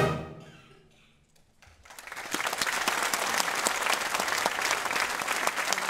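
A brass and woodwind band's final chord dies away, followed by a moment of near silence. Then audience applause starts about two seconds in and carries on steadily.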